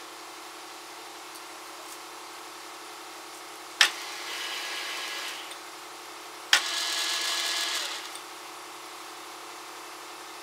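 Metal lathe running steadily while single-point cutting an 8-threads-per-inch thread. Twice, a sharp click is followed by a second or so of louder hissing.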